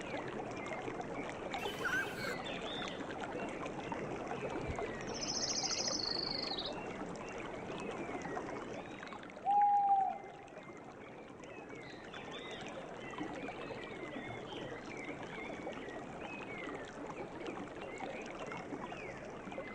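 Steady flowing river water with many birds chirping over it. A high, thin trill is held for about a second and a half around five seconds in, and a single short, lower call about halfway through is the loudest sound.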